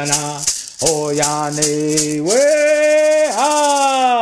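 A man singing a traditional Cherokee Friendship Dance song in vocables, over a hand rattle shaken in quick, even strokes. Partway through, the rattle goes into a continuous shake while the voice climbs to a held high note and then slides down.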